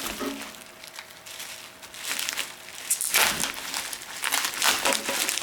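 Razor blade cutting and scraping, with crinkling and crackling of packaging, starting about halfway in after a quieter stretch; the blade is getting dull.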